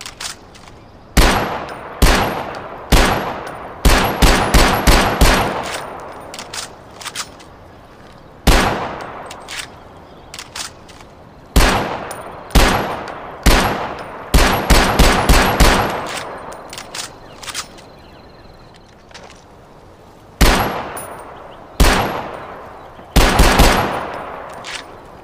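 Mauser M712 machine pistol firing: single shots spaced about a second apart, mixed with three short, fast bursts of several rounds each. Each shot has a ringing echo tail. A few light clicks fall between some of the shots.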